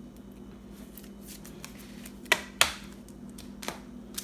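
Baseball trading cards being handled and flipped through by hand, with two sharp card flicks a little past the middle and a softer one later, over a low steady hum.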